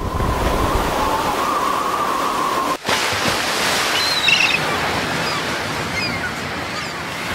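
Ocean surf breaking on a rocky shore: a steady rushing wash of waves. A held tone sounds over it for the first few seconds and stops with a short break about three seconds in; a few faint high chirps come later.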